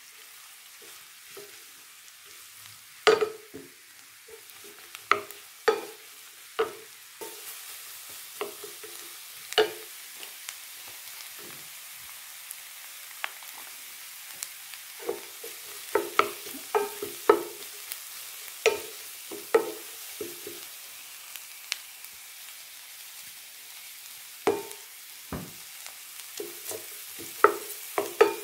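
Sliced mushrooms frying in a pan, stirred with a wooden spatula: irregular knocks and scrapes of wood against the pan over a faint sizzle that gets a little stronger after the first several seconds.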